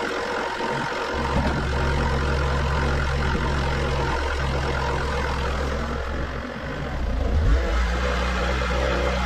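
Bobcat Toolcat 5600 utility machine's diesel engine running, revving up about a second in as its hydraulic forks lift a stack of lumber off a trailer. The engine dips briefly and picks up again around seven seconds in.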